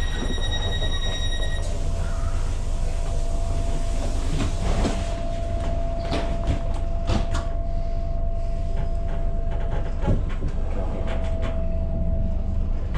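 Tyne & Wear Metro car heard from inside at low speed: a steady low rumble with scattered clicks and knocks, and a faint steady whine for most of the time. An electronic tone with several overtones stops about a second and a half in.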